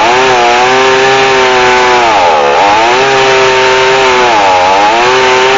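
Chainsaw in an Alaskan-style chainsaw mill ripping a log lengthwise into a board, running at high revs. Its pitch sags and recovers twice as it bogs under the load of the cut. The saw is short on power for milling and carries an ordinary chain rather than a rip chain.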